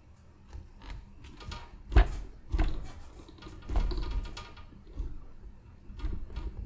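Irregular knocks, clunks and rattles of equipment being handled and adjusted on a workbench. The sharpest knock comes about two seconds in, followed by a cluster of clattering handling sounds.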